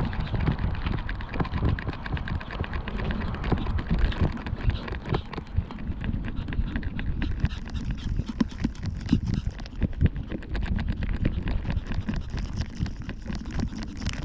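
Jolting and scuffing noise from a 360° camera moving low along the ground with a walking Yorkshire terrier: dense, irregular knocks and rubbing, with a grittier crunch from about seven seconds in as the road turns to loose gravel.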